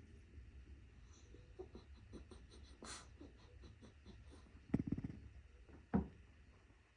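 A sleeping Yorkshire terrier breathing and snoring softly, with a brief hissing breath about three seconds in, a rapid fluttering snort a little before five seconds, and a shorter snort about a second later.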